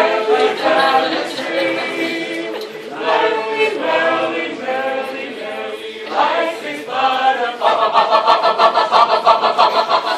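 A cappella vocal group singing in harmony without instruments, in phrases of a few seconds each; from about eight seconds in the voices switch to a quick, evenly repeated pulsing pattern, about five beats a second.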